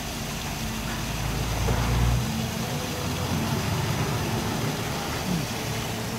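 Engine idling with a steady low hum. A louder low rumble over about the first two seconds cuts off suddenly.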